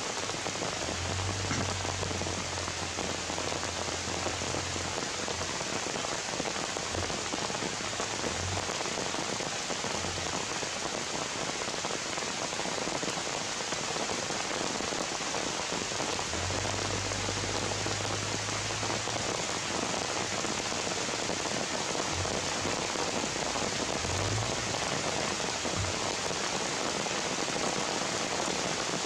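Steady rain falling on forest foliage and ground, an even hiss with no let-up.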